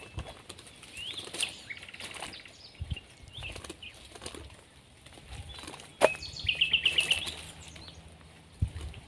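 Small birds chirping in short high notes, with a quick run of about six chirps about two-thirds of the way through, over light rustling of dry leaves. A single sharp click comes just before that run.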